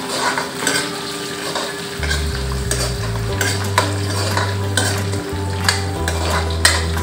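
Steel spoon stirring and scraping against a dark iron kadai as chana dal, ginger and green chillies fry in hot oil, with a steady sizzle and irregular metal scrapes. A low hum sits underneath from about two seconds in.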